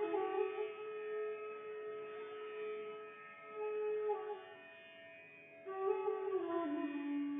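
Slow instrumental background music: a melody of long-held notes that step slowly from pitch to pitch.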